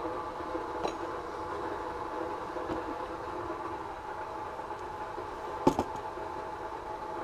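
Steady hum of a running machine, with a faint click about a second in and a single sharp knock a little past halfway.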